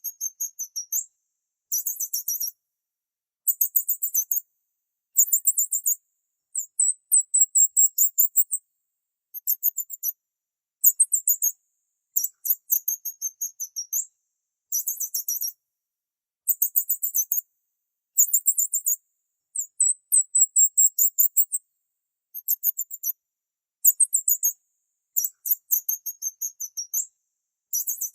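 Small bird chirping in rapid, very high-pitched trills, repeated in phrases of about a second with short silent gaps between them.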